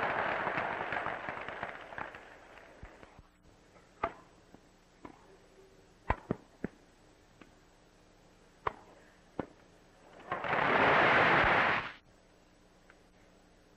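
Crowd applause dying away, then the sharp pocks of tennis balls struck with wooden racquets and bouncing on a grass court, a few irregular hits of a rally. About ten seconds in a short burst of applause rises and cuts off abruptly.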